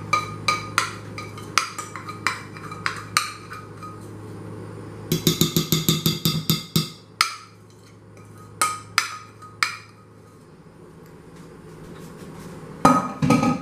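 A metal spoon tapping and scraping against a bowl as a thick, half-set melted ingredient is scooped out, with a quick run of rapid taps about five seconds in. A steady low hum runs underneath.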